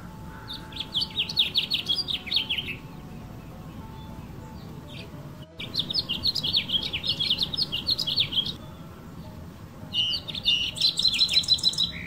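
Male house finch singing its courtship song: three long, rambling warbled phrases of quick, varied notes with pauses between them, the last ending in a fast run of even notes.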